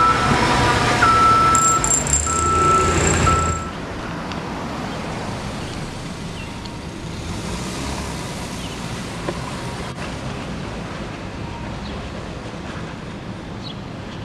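City street traffic with engine rumble and a run of high electronic beeps, like a vehicle's backup alarm. About three and a half seconds in the beeps and the loud rumble stop abruptly, leaving quieter, steady traffic noise.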